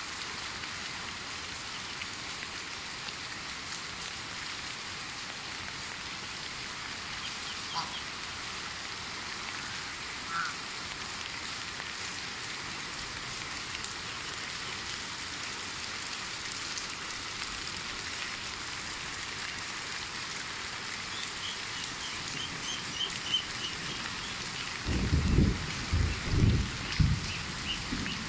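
Steady rain falling on a wet dirt yard. A couple of faint short calls from the poultry come about a third of the way in, a run of quick high chirps past the middle, and several loud low thumps near the end.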